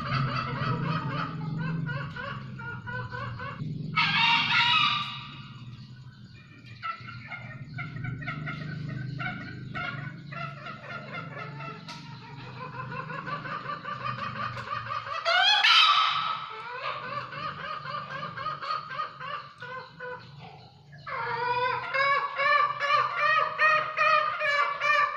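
Green junglefowl cock crowing: two short, shrill calls that sweep sharply upward in pitch, about four seconds in and again about fifteen seconds in. Continuous rapid chirping runs underneath.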